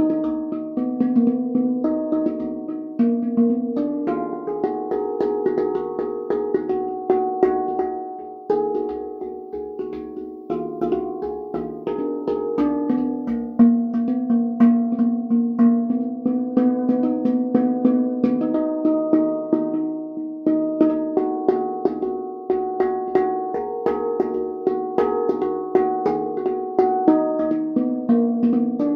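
Handpan played as a continuous melody: struck steel notes, several a second, each ringing on under the next. The playing softens briefly about eight seconds in.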